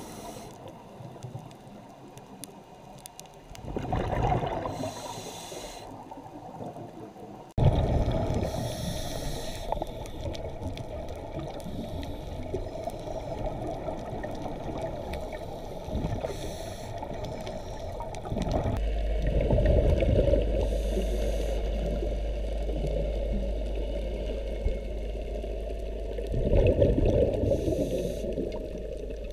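Underwater sound through a camera housing: scuba divers breathing out through their regulators, bubbles gurgling up in surges over a muffled wash of water. About two-thirds of the way through, a steady low hum comes in.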